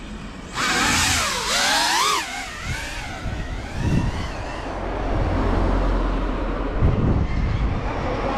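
FPV quadcopter flying close by: a sudden rush of propeller noise with a motor whine that rises and falls as the throttle changes, fading after a few seconds. Then a low rumble of a car approaching along the road.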